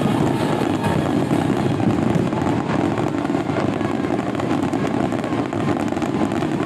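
Dense fireworks barrage: many bursts running together into a steady, loud rumble, with crackling throughout.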